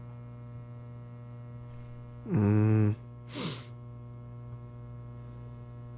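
Steady electrical hum with a buzzy edge. About two seconds in comes a short, loud pitched vocal sound, and a brief breathy hiss follows it.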